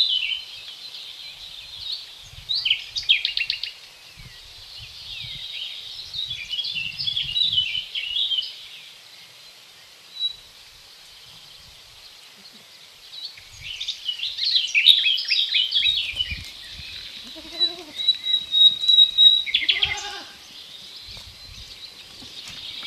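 Songbirds singing throughout in bursts of quick chirps and trills, with a long thin whistled note just past the middle. Goats bleat twice in the later part, each a wavering pitched call, over scattered soft low thumps.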